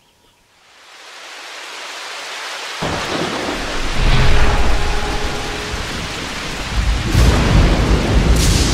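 Rain-and-thunder sound effect: steady rain fading in and building, with a deep thunder rumble breaking in about three seconds in and swelling again near the end, and a brief whoosh at the very end.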